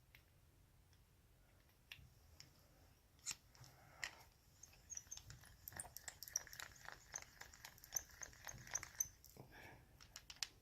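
Faint sharp clicks, then several seconds of rapid small metallic clicking and scraping, from a hand-operated tubular key code cutter being set and worked on a key blank.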